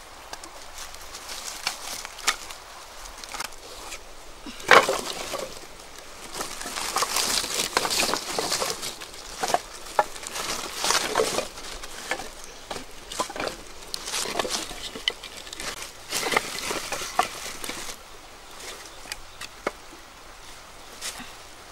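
Dry leaves rustling and sticks of wood knocking and clattering together as firewood is gathered and stacked by hand, in irregular bursts with one sharp knock about five seconds in.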